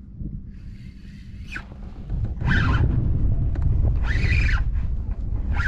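Fishing reel whirring in several short bursts, each rising then falling in pitch, over a low rumble, as a hooked redfish is played.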